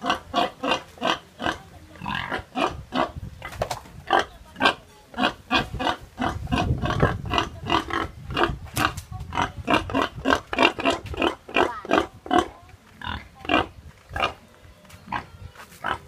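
An animal's short, sharp calls, repeated about three times a second throughout, with a low rumble for a couple of seconds in the middle.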